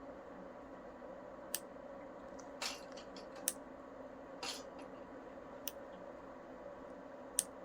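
Nail clippers snipping a Pembroke Welsh Corgi puppy's claws during a nail trim: about six short, sharp clips at irregular intervals, over a faint steady hum.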